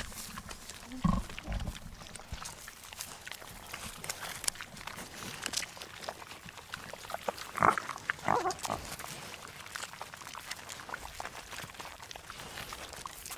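Macaque vocalising: a short low call about a second in, then a few brief, louder, higher calls around eight seconds in.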